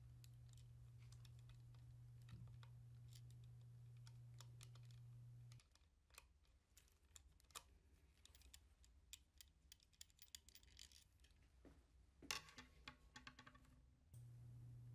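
Near silence with faint, scattered light clicks and taps of small parts being handled: screws, plastic air tubing and push-in fittings on an industrial sewing machine, with a closer run of clicks near the end. A low steady hum drops out about a third of the way in and returns just before the end.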